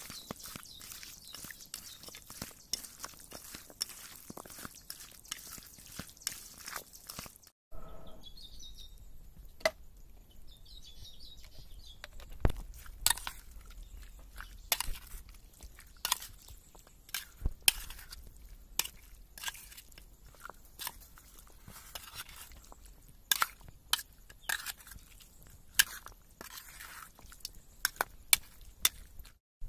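A hand squeezing and mixing raw chicken pieces with spice paste, onions and potatoes in a steel bowl, a dense wet crunching. After a cut about a quarter of the way in, a metal spoon stirs the marinated mixture with oil, with scattered sharp clinks and scrapes against the steel bowl.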